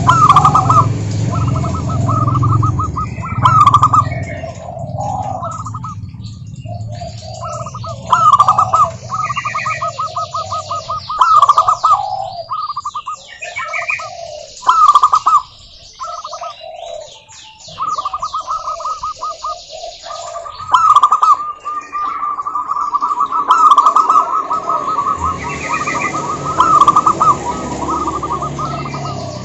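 Zebra doves singing: the staccato, rapidly repeated cooing trills of the species, phrase after phrase with short pauses, several birds calling over one another.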